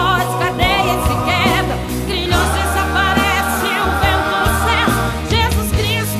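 Gospel song: a woman singing with vibrato over a band, holding one long note through the middle.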